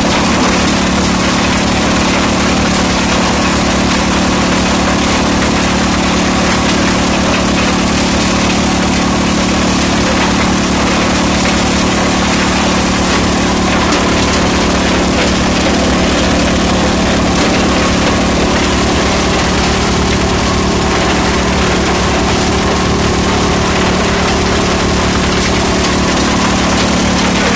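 Grizzly vibrating feeder running loaded with broken stone: a loud, steady machine drone with a constant hum under a dense rushing noise.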